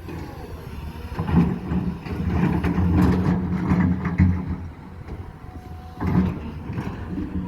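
Cat 320 hydraulic excavator's diesel engine working under load. It swells about a second in, eases off after about four seconds and picks up again near six seconds, with scattered short knocks and clatter over it.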